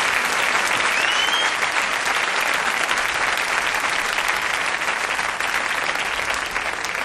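A crowd applauding and cheering, with a short rising whistle about a second in; the applause slowly fades.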